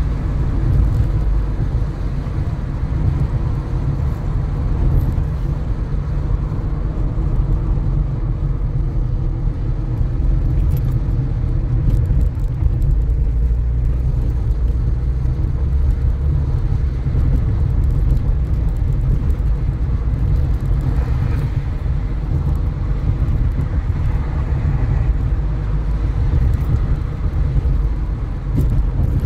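A car driving, giving a steady low rumble of engine and road noise.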